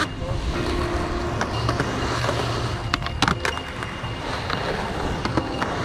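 Skateboard wheels rolling on smooth concrete, a steady rumble, with a few sharp clacks of the board popping and landing, clustered about three seconds in and again near the end.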